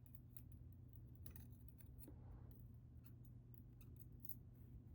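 Faint, scattered small metallic clicks of steel tweezers handling the driver pins and springs of a disassembled ABUS 72/40 padlock.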